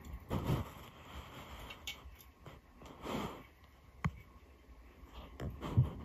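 Greek tortoise (Testudo graeca) biting and crunching on a piece of cuttlebone: a handful of separate crunches a second or more apart, the loudest near the end.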